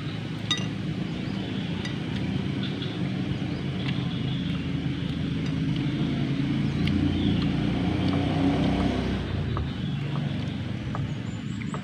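Engine of a motor vehicle running off-camera, a steady low drone that grows louder about halfway through and then fades away as it passes. A few light clinks of plates and skewers are heard over it.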